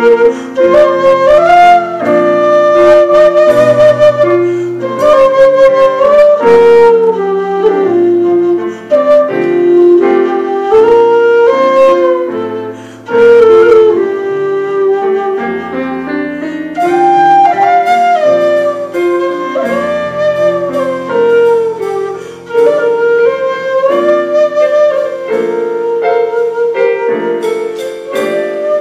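Quena (Andean notched flute) playing the melody of a harawi, sliding and bending between notes, over electric bass guitar and drum kit accompaniment.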